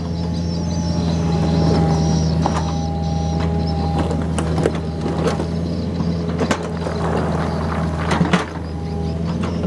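Komatsu PC45 mini excavator's diesel engine running steadily under load, with a whine that comes and goes as the boom and arm move. Scattered sharp knocks and scrapes come from the bucket digging into broken road surface and rubble.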